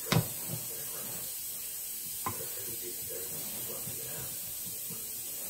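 Raw meatloaf mixture being pressed and spread in a glass loaf pan: a sharp knock right at the start and a lighter click a little over two seconds later, with soft faint sounds of the work between, over a steady hiss.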